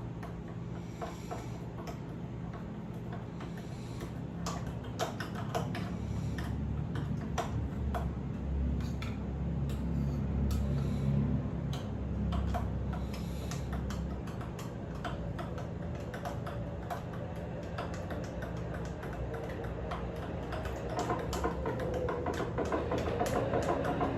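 Irregular light clicks and taps of kitchen utensils against dishes, over a steady low hum.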